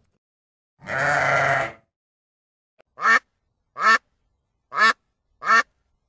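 A sheep bleats once, a call lasting about a second, then a duck gives four short quacks roughly a second apart.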